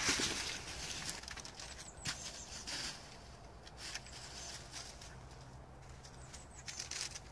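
Dry fallen leaves rustling and crackling under a terrier's paws as it scrambles about and jumps at a tree trunk. There are a few sharp scuffs in the first three seconds, then it goes quieter.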